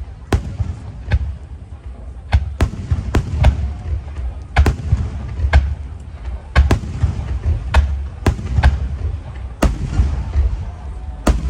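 Fireworks display: aerial shells bursting in a rapid, irregular string of sharp cracks, about fifteen in all, over a continuous low rumble.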